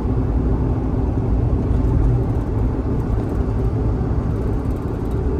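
Steady low rumble of a kei van on the move, with its engine and road noise running evenly.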